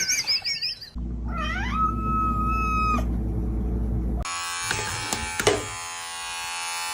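A cat's long meow, rising and then held on one pitch before cutting off suddenly, followed by a steady electric buzz.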